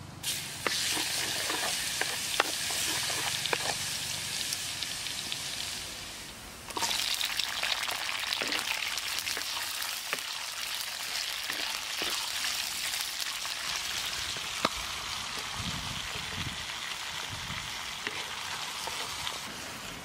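Hot oil sizzling and popping in a wok. About six and a half seconds in, the sizzle jumps louder as red chillies and minced garlic go into the oil, then keeps frying steadily with scattered pops.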